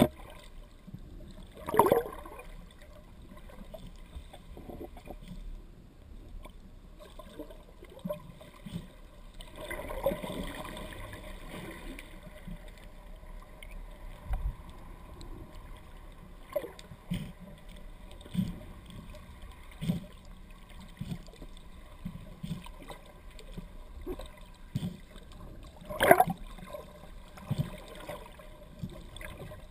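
Muffled water noise heard through an underwater camera housing just below the surface, with irregular soft knocks and two louder sloshing bursts, one about two seconds in and one near the end.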